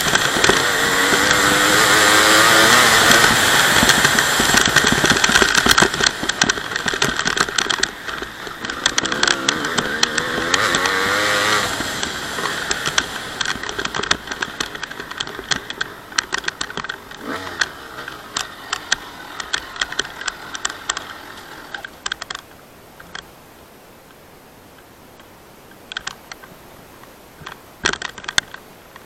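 Honda CR250's 250 cc two-stroke single-cylinder engine running and revving, its pitch rising and falling, then dying away after about twelve seconds. Scattered clicks and rattles follow.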